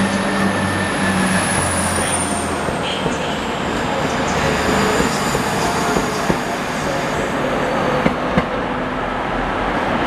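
Class 175 diesel multiple unit running past close by along the platform, then drawing away: a steady rumble with a low engine hum that fades after the first second or so and a high whine falling in pitch over the first few seconds. A few short clicks come in the second half.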